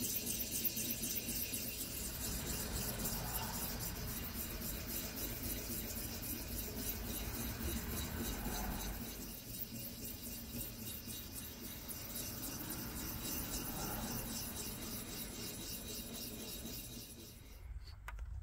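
Small diamond hone rubbed in many quick, short strokes along an axe's steel bevel, a dry scraping hiss as the edge is honed. The strokes stop abruptly near the end.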